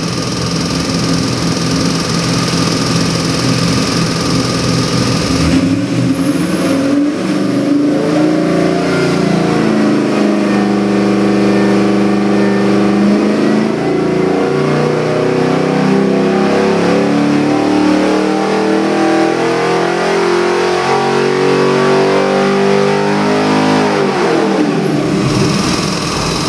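Chevy LS3 416 cubic inch stroker V8 on an engine dynamometer doing a sweep run. It idles, the throttle opens about five seconds in, and the engine climbs steadily in revs under the dyno's load for about sixteen seconds. Near the end it drops back to idle.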